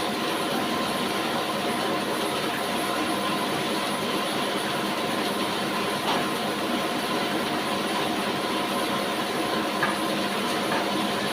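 Horizontal sawmill machine running steadily with a constant mechanical hum, with a short click about six seconds in and another near the end.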